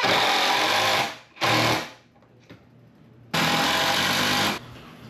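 Power drill with an extension bit driving screws into wood studs. It runs in three spurts: one ending about a second in, a short one, then a longer one in the second half.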